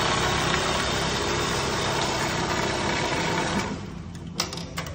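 Industrial sewing head of an Eisenkolb BBC-3000 automatic sewing station running at speed at the start of its cycle, then stopping about three and a half seconds in, leaving a quieter hum. Two sharp clicks follow near the end.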